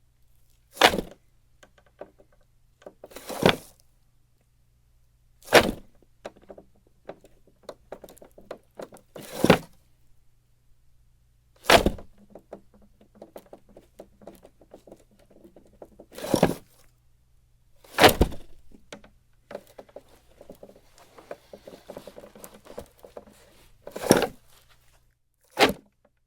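Small wooden box drawer slid open and shut over and over: a soft rattling slide, then a sharp wooden knock as it hits its stop, about nine knocks in all.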